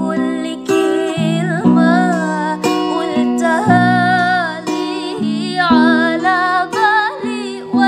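Background music: plucked acoustic guitar under a singing voice that holds long wavering notes.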